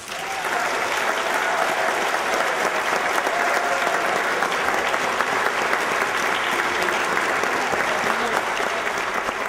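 Audience applauding, a dense steady clapping that breaks out as the music stops.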